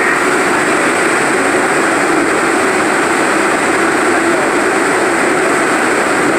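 R62A subway car running through a tunnel, heard from inside the car: a loud, steady rumble of wheels on rails.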